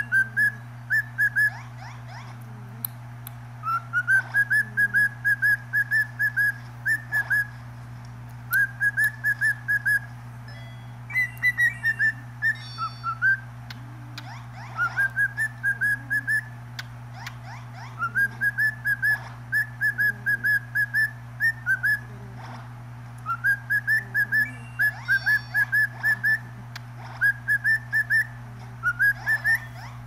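Cockatiel whistling the same short phrase over and over: a rising note followed by a quick run of short chirps, repeated every few seconds. A steady low hum runs underneath.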